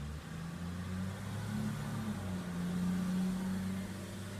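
An engine running with a low, steady hum whose pitch shifts up and down a few times.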